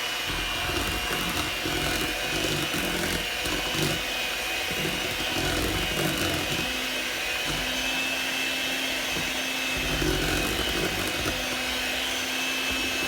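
Electric mixer running steadily, beating cake batter, its motor giving a constant whine over an uneven low churning.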